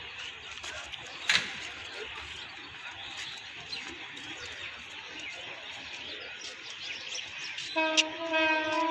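Birds chirping in the trees, with one sharp click about a second in. Near the end a steady, even-pitched tone starts and holds.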